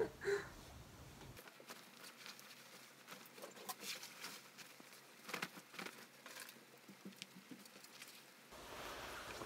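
Soft rustling and small clicks of a white doctor's coat being put on and adjusted, after a short louder sound right at the start.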